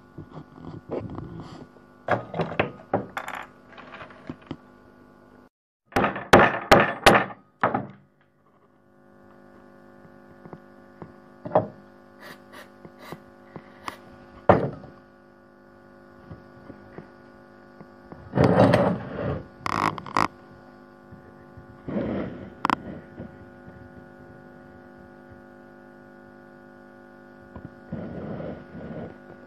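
Wooden pieces knocked, handled and set down on a workbench, with a quick run of hammer taps about six seconds in, over a steady electrical hum.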